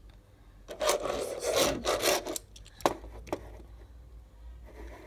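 A diecast toy car scraping and rubbing across a wooden table top for a second or two, followed by two light knocks as it is set down.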